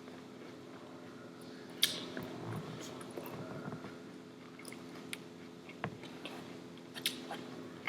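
Close-up chewing and biting of food, with a few sharp clicks about two seconds in and again around seven, and a dull knock just before six.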